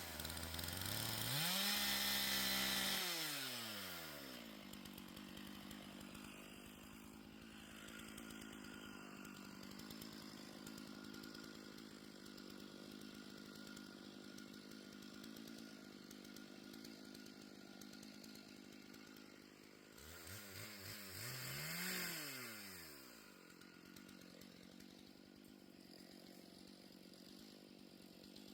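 Two-stroke chainsaw idling steadily, revved up to high speed twice: once at the start and again about two-thirds of the way through, each time dropping back to idle.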